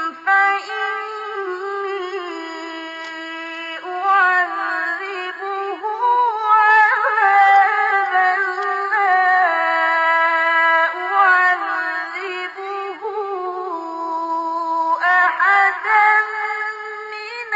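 A Quran reciter's voice in the melodic mujawwad style: one high male voice holding long, ornamented notes that slide and step between pitches. The recitation breaks off briefly for breath about four seconds in and again near fifteen seconds.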